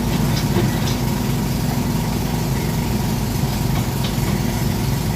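Sumitomo SH210-5 hydraulic excavator's diesel engine running steadily at idle, a constant low drone.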